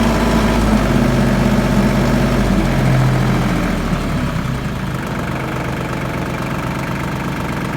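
Branson F42Rn tractor's diesel engine running at raised revs, then dropping back to a steady idle about four seconds in.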